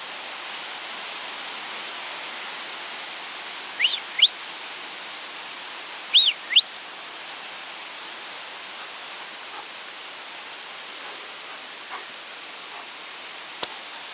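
Steady rush of strong wind on the microphone. About four and six seconds in come two pairs of short, rising high whistles.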